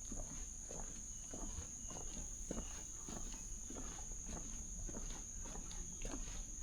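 Footsteps walking a rainforest trail, about two steps a second, over a steady high-pitched insect drone.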